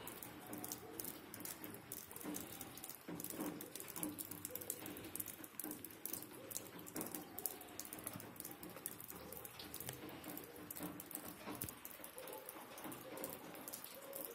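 Light rain pattering faintly, a dense irregular ticking of drops.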